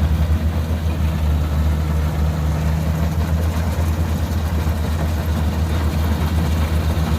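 Kubota DC60 combine harvester's diesel engine running steadily while it cuts flattened, lodged rice close to the ground, a deep, even drone.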